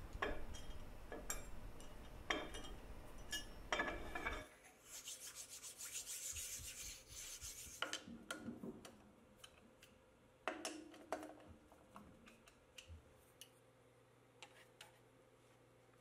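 Quiet handling sounds on an aluminium workpiece: scratchy rubbing, as of aluminium chips being brushed across the plate, then scattered light metallic clicks and taps of hand tools. The sound dies away to near silence over the last few seconds.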